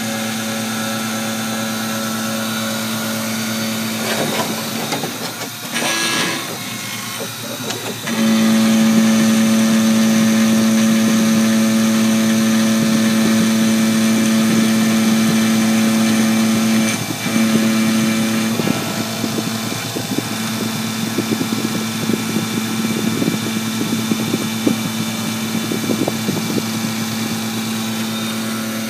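Small CNC milling machine cutting an aluminium block with an end mill: a steady motor whine, with the sound of the cut. The whine gets louder about eight seconds in, and rough, irregular crackling from the cutter comes and goes through the second half.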